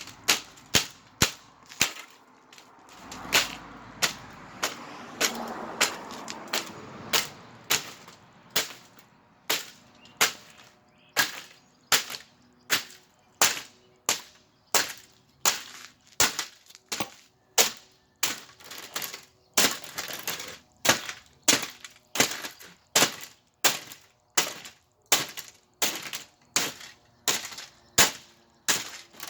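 Galaxy box fan being smashed apart with a steady run of sharp blows, about one and a half a second, its housing cracking and breaking into pieces.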